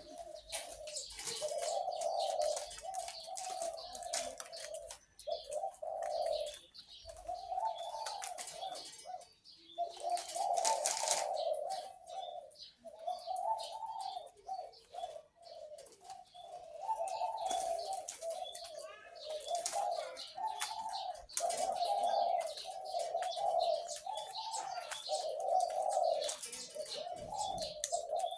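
A caged dove cooing over and over in low phrases of a second or two each, with small birds chirping high and thinly in the background.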